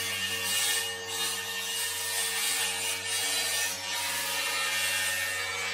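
A power saw running steadily and cutting into a wooden roof beam, trimming it to fit, with a steady motor hum under the rasp of the cut.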